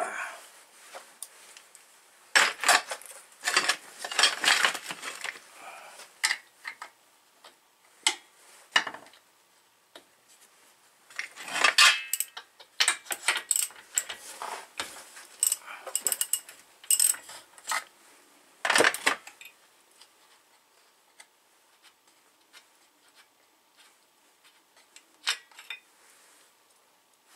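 Hand tools and metal parts clinking and clattering against an old McCulloch 250 chainsaw as it is worked on by hand. The sharp clicks and rattles come in bursts through the first two-thirds, then it goes mostly quiet with a few light clicks near the end.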